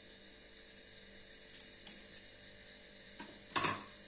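Knife and hands working a sandwich on a steel plate: a few faint clicks, then a short, louder clatter about three and a half seconds in, with a brief ring of the metal plate.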